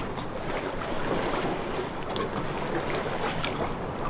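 Water washing along the hull and wind noise aboard a sailboat under sail in a light breeze, steady, with a couple of faint clicks.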